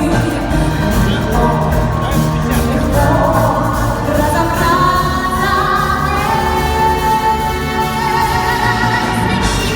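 A band playing a pop song, with a singing voice over the accompaniment.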